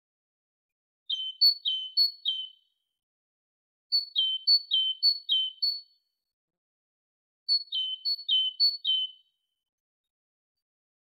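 Great tit singing its two-note "teacher-teacher" song: three phrases, each of three or four quick pairs of a higher note dropping to a lower one, a couple of seconds apart.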